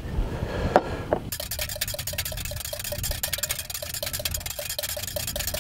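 Wire whisk beating a runny egg, mustard and vinegar mixture in a glass bowl: rapid, even strokes clinking against the glass. This is the base of a homemade mayonnaise before the oil goes in. A couple of knocks come just before the whisking starts.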